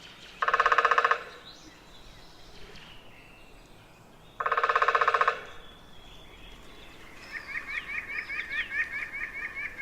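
Downy woodpecker drumming twice, each an even, rapid roll lasting under a second, about four seconds apart. In the last few seconds a white-breasted nuthatch sings a steady series of short rising notes, about four or five a second.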